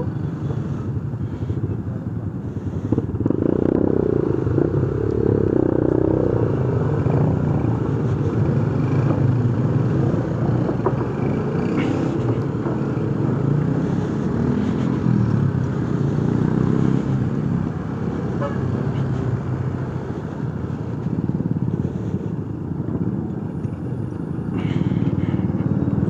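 Motorcycle engine running at low speed, louder and busier about three seconds in as the bike moves off, with other motorcycles close by.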